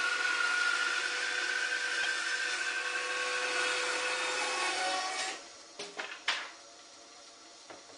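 Homemade wooden bandsaw with a narrow quarter-inch blade running steadily as it saws a wooden paddle blank. The saw sound drops away about five seconds in, followed by two knocks as the wood is handled.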